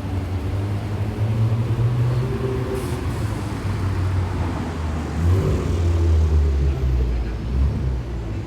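A heavy road vehicle's engine running close by, a deep low sound that grows louder in the second half, with a short hiss about three seconds in.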